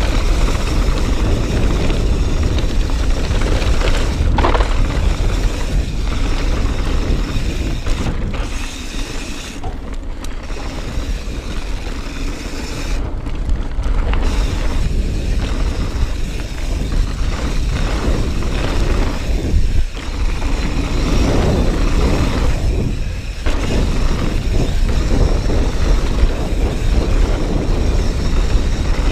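Mountain bike descending a gravel and dirt trail at speed: wind rushing over the microphone, with tyres rolling over loose gravel and the bike rattling over bumps. The noise eases for a few seconds in the middle, then picks up again.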